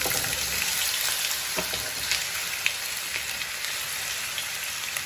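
Diced raw potatoes frying in hot vegetable oil in a pan: a loud, steady sizzle with a few sharp crackles, starting just as the potatoes hit the oil.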